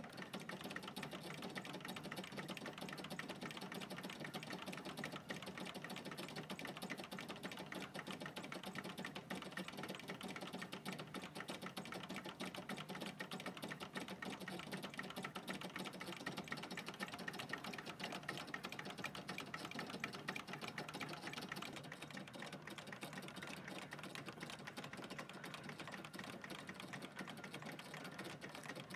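Early Märklin toy hot air (Stirling) engines running, a steady, fast, light metallic clatter from their moving mechanism.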